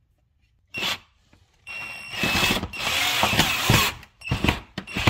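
Cordless drill/driver driving a screw through the grille into the plastic bumper: a click about a second in, then the drill runs with a steady high whine in several short bursts.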